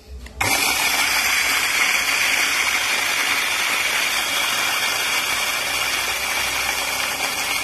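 Electric coffee grinder switching on about half a second in and grinding a dose of coffee beans at a coarse setting for manual brewing. It runs as a steady loud grinding noise with a constant high whine.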